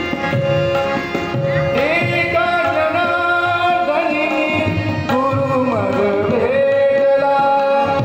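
Devotional bhajan played live: tabla keeping a steady rhythm under a held harmonium drone, with a man's voice coming in about two seconds in, sliding and ornamenting through a melodic phrase.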